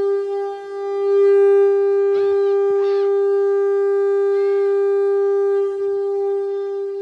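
STL-10 electromechanical outdoor warning siren sounding a steady single tone at full pitch, its loudness wavering slightly.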